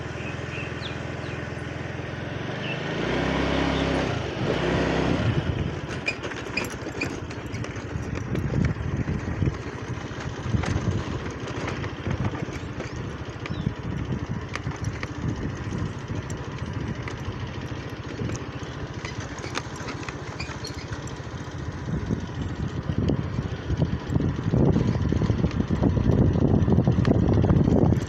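Hussar 140 cc motor scooter engine running as it is ridden, rising in pitch and loudness about three to five seconds in as it pulls away. It runs on unevenly with many small knocks and rattles, getting louder near the end.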